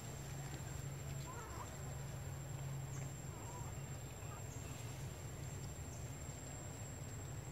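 Outdoor ambience: a steady low hum with a few faint, short wavering animal calls, about one and a half and three and a half seconds in.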